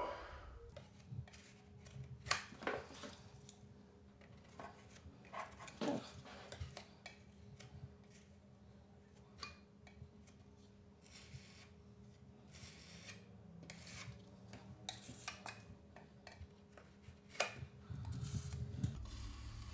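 Faint scraping and clicking of a metal putty knife spreading and smoothing lightweight wood filler into a damaged corner of painted wood door casing, in short irregular strokes. A faint steady hum runs under it.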